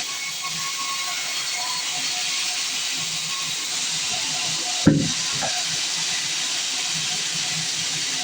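Band sawmill running with a steady hiss, with a single sharp knock about five seconds in.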